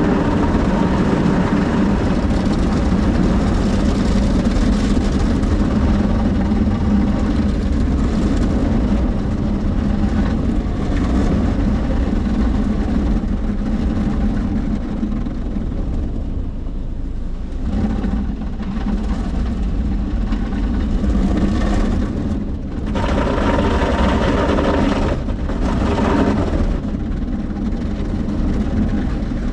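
Soft-touch automatic car wash working over a car, heard from inside the cabin: a steady low machine hum under the rush of water and suds on the body. The spraying eases off in the middle and surges again in a couple of stretches near the end.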